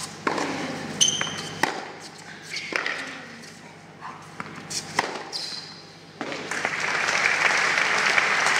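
A tennis rally: rackets hitting the ball several times, with shoe squeaks on the indoor hard court. About six seconds in, the crowd applauds the won point.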